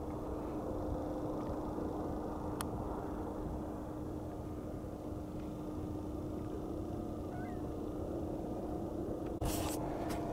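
Small electric boat motor driving an egg-shaped propeller, running steadily with a constant low hum over a wash of noise. A brief knock comes near the end.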